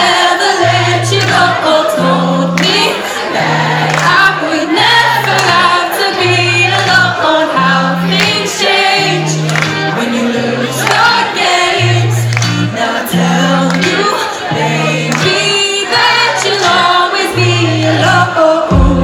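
Live pop song played through a venue PA, with a woman singing over a bass line of held notes that step between pitches about once a second.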